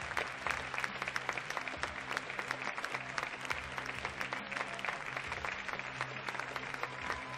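Audience in a large theatre applauding steadily, with music playing low underneath.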